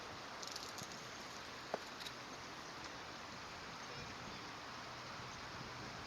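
Steady rush of flowing water, with a few faint high ticks about half a second in and one sharp click a little under two seconds in.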